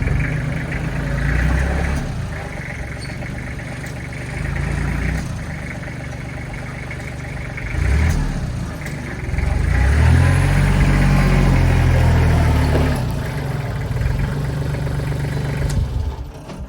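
An engine running, rising in speed and loudness about eight seconds in and again for about three seconds from ten seconds in, then dropping back before cutting off near the end.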